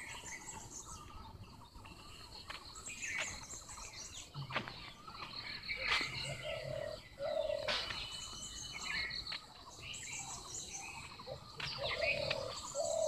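Faint outdoor village ambience: birds chirping and calling on and off over a steady high insect hum, with a few short mid-pitched calls in the second half and a handful of soft clicks.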